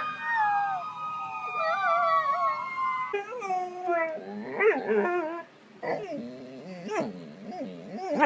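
A dog howling in long, wavering notes, then a run of shorter whining cries that rise and fall in pitch, starting about three seconds in.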